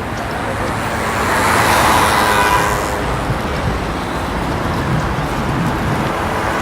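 City street traffic: a steady rumble of road traffic, with one vehicle passing close, swelling and fading about two seconds in.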